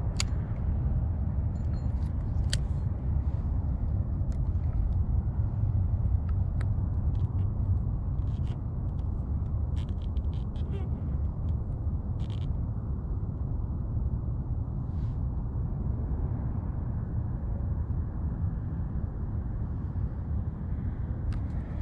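Steady low rumble of wind buffeting the microphone on open water, with a scattering of small clicks and taps of handling in the first half.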